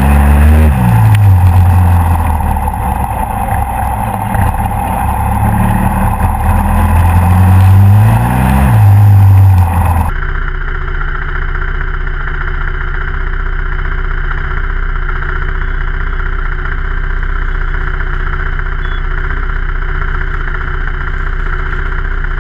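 Motorcycle engine heard close up from a camera on the bike, revving as it rides: the pitch falls just after the start and climbs again before the middle. About halfway through the sound changes abruptly to a steady engine hum with no revving, as the motorcycle waits stationary.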